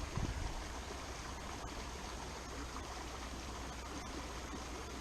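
Steady, even rush of a creek running after a flood, with a few low bumps in the first half-second.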